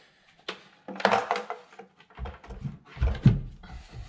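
Wooden speaker shelf knocking and scraping against the van's interior panels as it is lifted and pushed up into place under the roof. There are a few sharp knocks, then a run of low thuds about two to three seconds in, the loudest just after three seconds.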